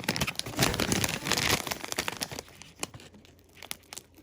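Freshly sharpened small knife slicing through cardboard: a crackling, tearing cut for about two seconds, then a few light clicks and scrapes.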